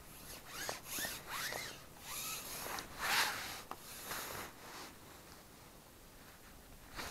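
Fishing pole being slid out through the angler's gloved hands and over his sleeve as it is shipped out, making a series of rasping rubs. The loudest comes about three seconds in, and it goes quiet over the last couple of seconds.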